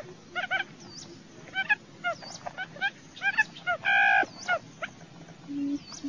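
Barred buttonquail call recording: quick clusters of short curved chirps, a brief nasal honk about four seconds in, and near the end the first deep, low booming notes of the buttonquail's call.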